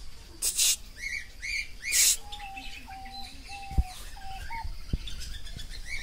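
A mix of captive birds calling in an aviary: repeated short chirps, a few loud harsh calls, and a run of steady whistled notes, with a brief knock about four seconds in.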